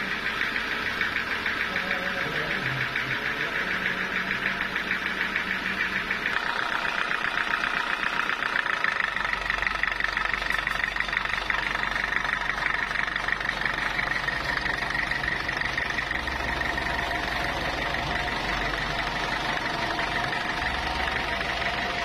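Belt-driven engine powering a sawmill, running steadily with a fast, even knocking beat.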